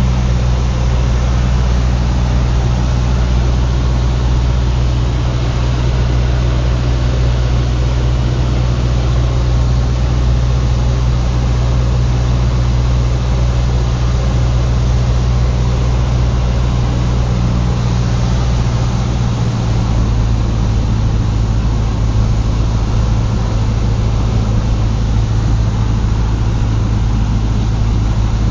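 Cessna 150's four-cylinder Continental O-200 engine and propeller running steadily with a constant drone, its low tone shifting slightly about twenty seconds in.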